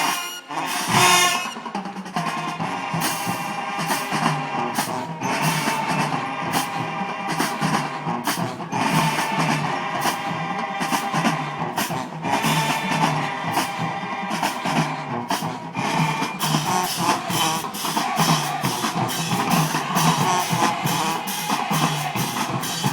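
High school marching band playing, with drums beating steadily under the brass.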